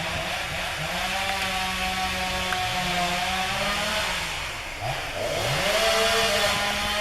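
Chainsaw running at high revs while cutting trees, its engine pitch dropping about four seconds in and climbing back up a second later as the throttle is eased and opened again.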